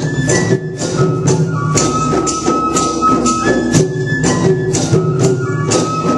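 Indian folk music played live: a high wind-instrument melody held in long notes over steady percussion, with sharp jingling strokes about twice a second.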